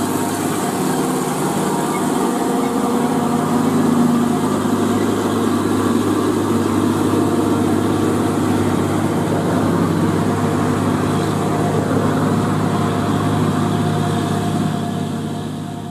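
Diesel engine of an old tandem-axle cargo truck pulling slowly up a grade, passing and moving away, with a steady low engine note that fades out near the end.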